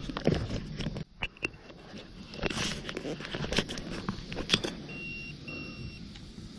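Close handling noise: rustling and clicking as thin paraglider lines and gear are fingered and picked at right by the microphone. A few short high beeps sound, two of them close together about five seconds in.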